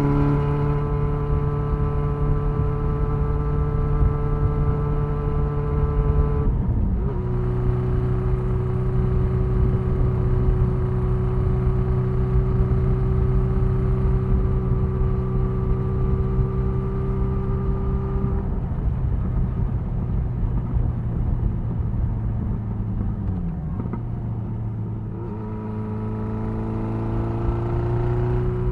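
1975 Honda CB550F's inline-four engine running under way at a steady cruise, with wind rush underneath. About six and a half seconds in the note breaks briefly and settles lower, as on a gear change. The pitch dips again past the twenty-second mark, then climbs steadily near the end as the bike accelerates.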